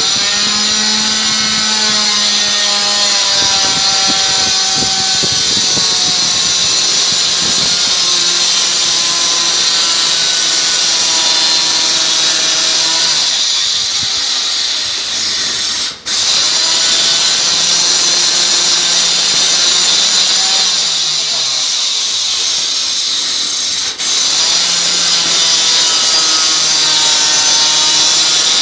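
An electric power tool motor running loud and steady with a high hiss, its pitch shifting now and then and sagging briefly, cutting out for an instant twice.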